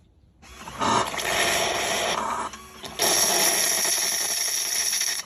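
Miele CM5300 coffee machine blowing steam and air through its tubes and spouts to purge the remaining water during its drain-and-evaporate program: a loud hiss that rises about half a second in, dips briefly, returns stronger about three seconds in, then cuts off suddenly.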